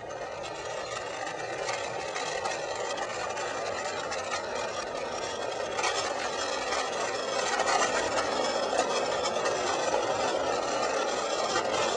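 RipStik caster board wheels rolling over asphalt strewn with sand and salt: a steady gritty rumble with fine crackling through it, growing louder about halfway through.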